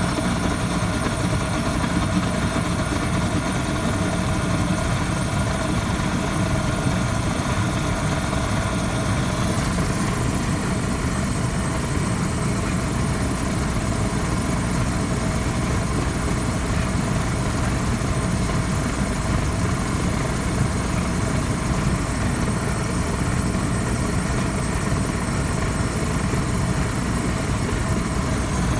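Waste oil furnace burner firing steadily: a continuous low rumble of the flame and blower with a steady whine over it. The higher part of the whine drops away about ten seconds in.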